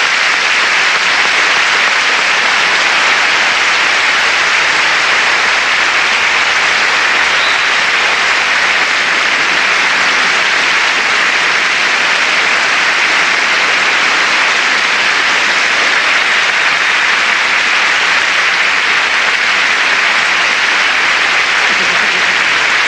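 Large audience applauding steadily, a long unbroken ovation.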